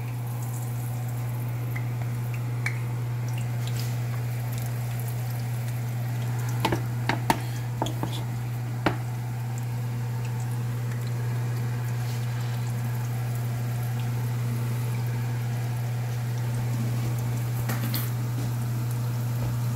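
Breaded chicken cutlets frying in hot pomace olive oil in a cast-iron skillet: a steady sizzle with crackling pops, and a few sharp clicks between about six and nine seconds in. A steady low hum runs underneath.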